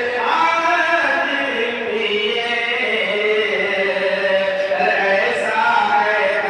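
A man chanting a devotional Urdu verse unaccompanied into a handheld microphone, in long held notes that glide up and down.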